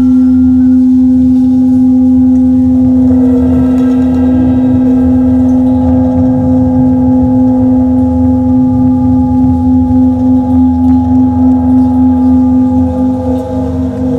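Loud sustained drone of microphone feedback shaped by a cymbal, with a microphone held close beneath it and a felt mallet touching it: one steady low tone with fainter higher tones above. From about halfway the drone begins to throb, pulsing more strongly near the end.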